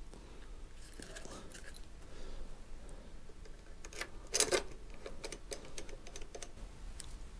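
Light metallic clicks and rattles of a small hand tool and a bolt being worked into a motorcycle's brake caliper, with a louder clatter about halfway through followed by a quick run of light ticks.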